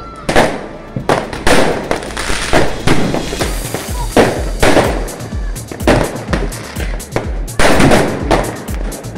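Fireworks going off in quick succession: a long run of sharp bangs and crackles from aerial bursts. Music with a steady thumping bass beat plays underneath from about three and a half seconds in.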